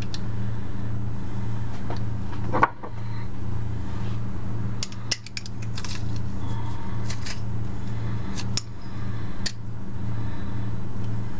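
Hand-held metal garlic press clicking and clacking as garlic cloves are pressed, several sharp metallic clicks spaced over the stretch, over a steady low electrical hum.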